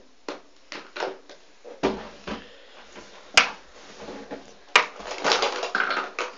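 A case of magic-trick props being handled and opened: a string of knocks and clicks, two sharp ones near the middle, then a denser clatter of the contents shifting about near the end.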